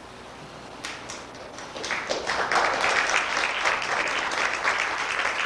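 Audience applauding: a few separate claps about a second in, building into steady clapping from about two seconds on.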